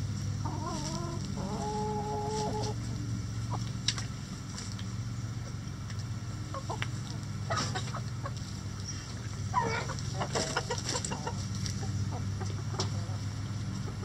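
Chickens clucking in a backyard flock. One drawn-out call starts about half a second in and ends on a held note. A quick run of short clucks comes about ten seconds in. A steady low hum runs underneath.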